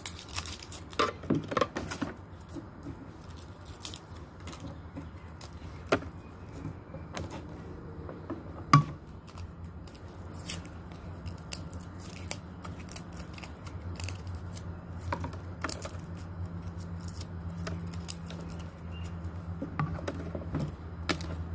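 A small knife paring garlic cloves over a plastic cutting board: scattered light clicks and taps, with one sharper knock a little under nine seconds in. A low steady hum runs underneath and grows stronger in the second half.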